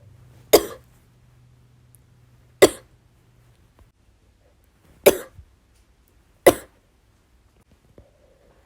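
A woman with bronchitis coughing: four single short, sharp coughs, a couple of seconds apart.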